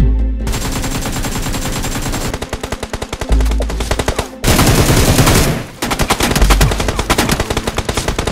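Sustained rapid automatic gunfire, many shots a second, with deep booms at the start, about three seconds in and about six and a half seconds in.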